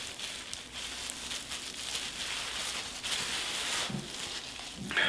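Wet squishing and rustling of hands massaging creamy hair color into hair at the scalp, with a short low sound near the end.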